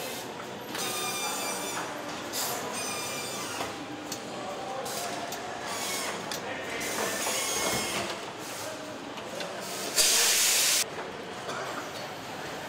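Truck assembly-line workshop noise: scattered metal knocks and clatter, with a sudden loud burst of compressed-air hiss about ten seconds in that lasts just under a second.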